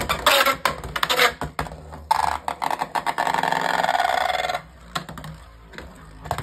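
Dran Sword 3-60 Flat Beyblade top spinning in a plastic stadium. Quick sharp clicks as it knocks about for the first second or so, then about two and a half seconds of loud, steady grinding buzz as it runs against the stadium, then quieter spinning with a few light knocks.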